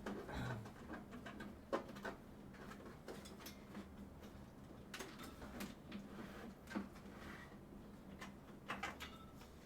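Quiet handling noise: scattered light clicks, taps and rustles, the sharpest about two seconds in, about seven seconds in and near the end, over a faint steady hum.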